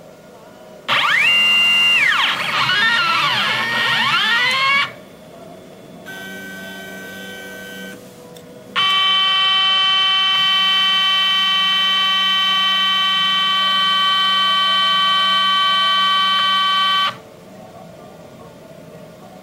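CNC machine's stepper motors whining as the axes move on a test run. A tone rises in pitch, holds and falls, then sweeps up and down in arcs. After a short pause a quieter steady tone plays, then a loud steady tone holds for about eight seconds and cuts off.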